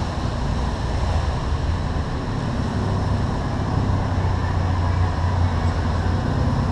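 Road traffic with a steady low engine rumble, among it a chopper trike powered by an air-cooled Volkswagen Beetle engine riding alongside.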